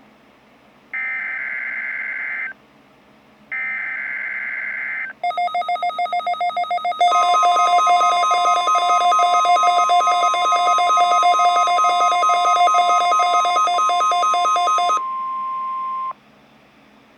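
NOAA Weather Radio test signal: two bursts of buzzy digital SAME header tones, then the steady single-pitch warning alarm tone, which holds for about nine seconds and cuts off suddenly near the end. Over most of it a rapidly pulsing electronic alarm beep sounds, starting just before the steady tone and stopping a second before it.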